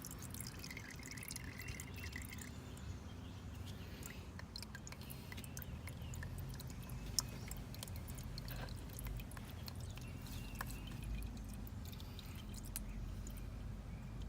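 Engine oil draining from the drain-plug hole of an iGen 4500 inverter generator into a cut-down jug, trickling and dripping with scattered small ticks and one sharper tick about seven seconds in. A low steady hum runs underneath.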